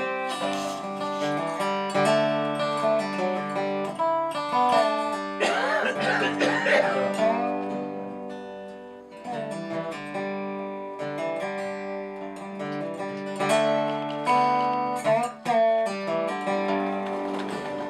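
Resonator guitar played lap-style with a slide bar: picked notes ring over a steady low note, with sliding, wavering pitches about six seconds in and again near the end.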